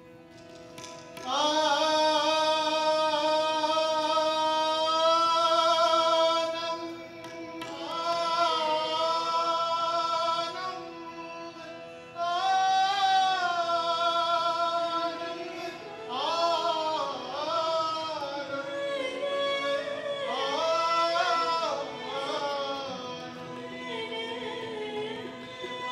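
Sikh devotional hymn (kirtan) sung with long, wavering held notes over a steady harmonium accompaniment. The singing comes in about a second in and moves in phrases with short breaks between them.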